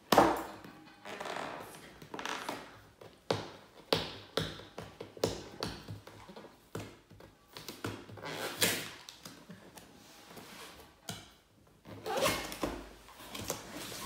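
Sticky tape being pulled and torn off a cardboard box in a run of short rasping tugs, mixed with taps and knocks of hands against the cardboard; the loudest is a sharp knock right at the start.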